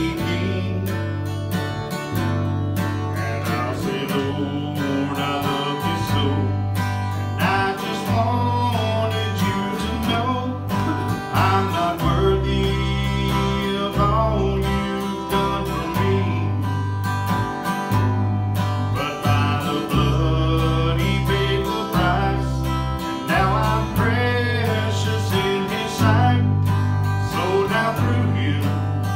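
A live country-gospel song. An acoustic guitar is strummed over an electric bass line, and the deep bass notes change every second or so.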